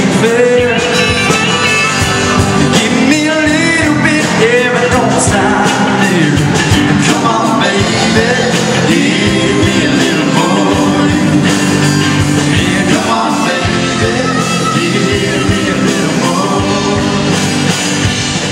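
Country band playing a song with a singer's voice over the instruments.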